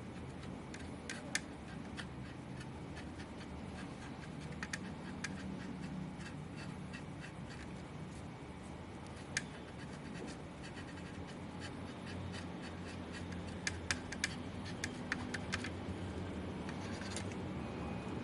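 Scattered sharp small clicks and faint scratching of hand work on a graphics card, with a steady low hum underneath. The clicks come singly or in short bunches, most of them in the second half.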